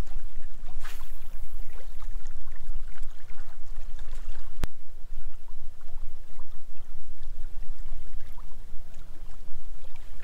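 Wind buffeting the camera microphone: an uneven low rumble that rises and falls, with one sharp click about four and a half seconds in.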